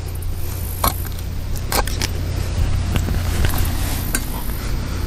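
A few sharp clicks and knocks as a shoe and hands meet the metal step and platform of a tree-climbing stick, over a steady low rumble that grows slightly louder.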